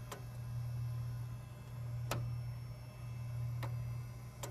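Failing floppy drive in a running PC clicking: four sharp clicks at uneven intervals over a steady low hum. The owner says the drive is dying and misbehaves on startup.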